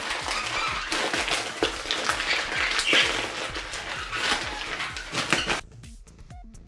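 Newspaper being crumpled and squeezed by hand into a small cone, a dense crackling that stops suddenly about five and a half seconds in. Quiet background music runs underneath.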